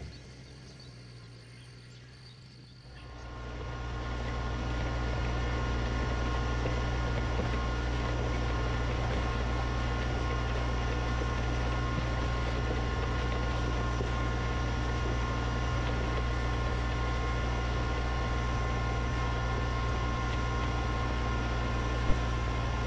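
LS MT125 compact tractor's diesel engine running at a steady speed while its rear box blade scrapes and drags gravel along the drive. It is faint and distant at first and becomes much louder and close about three seconds in; a single sharp knock comes near the end.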